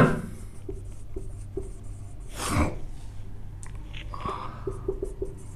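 Whiteboard marker writing on a whiteboard: faint taps and light scratches of the tip as letters are written. One short breathy noise, louder than the writing, about two and a half seconds in.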